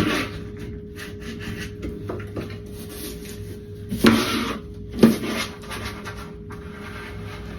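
Wallpaper being handled and rubbed against the wall: short rustling, scraping strokes, the loudest about four and five seconds in, over a steady low hum.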